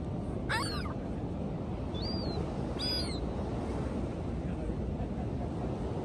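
Three short, high gull calls, the first and last with a falling sweep, over a steady low rush of wind and waves.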